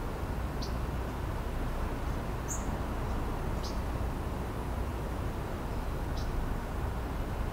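Four brief, high bird chirps, spaced a second or more apart, over a steady low background rumble.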